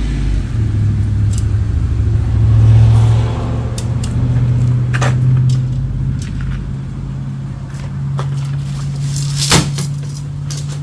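Shock-corded tent pole sections clicking together now and then, with the sharpest click near the end, over a steady low engine-like hum.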